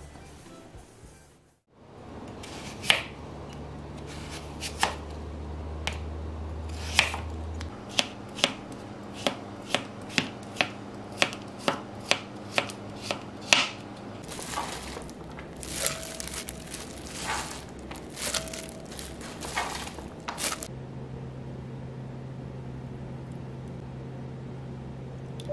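Kitchen knife slicing Korean radish into matchsticks on a plastic cutting board: sharp knocks of the blade meeting the board, about two a second, then quicker, lighter cuts.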